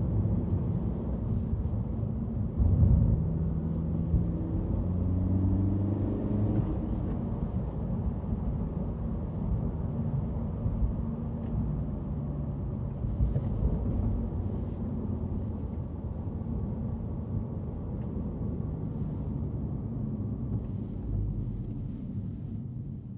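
Honda Civic FK7's ECU-tuned 1.5-litre turbocharged four-cylinder L15C engine running while driving, with loud surges near the start and about three seconds in. Its note rises in pitch a few seconds later, then settles lower and steadier before fading near the end.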